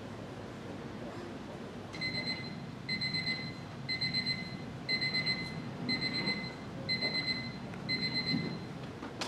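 Electronic alarm clock beeping in the pattern of a digital bedside alarm: seven bursts of about four quick beeps each, one burst a second, starting about two seconds in.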